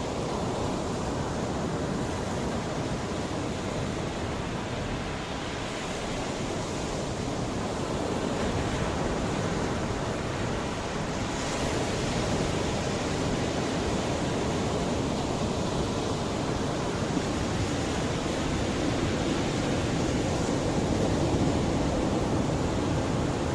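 Mediterranean sea waves washing onto the shore in a steady, even rush, swelling and easing gently, with some wind on the microphone.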